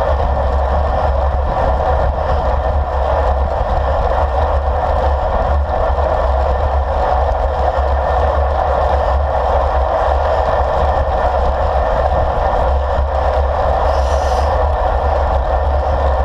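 Steady wind rush and tyre-on-tarmac noise from a road bike riding at speed, heard through a handlebar-mounted GoPro with wind buffeting the microphone.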